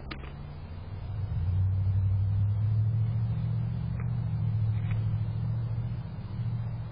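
Low, steady rumble of a motor vehicle's engine, getting louder about a second in and holding, with a few faint short high sounds over it.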